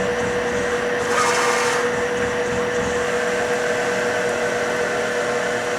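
Cleveland B6FC vertical CNC bed mill running a peck-drilling cycle: a steady machine hum with one held whine throughout, and a brief hiss about a second in.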